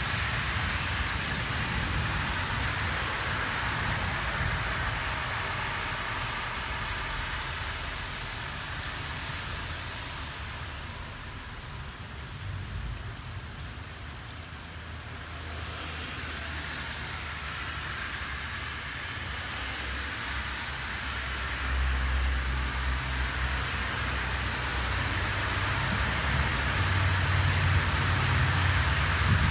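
Steady rain during a thunderstorm, heard as an even hiss, with a low rumble that swells about two-thirds of the way through and again near the end.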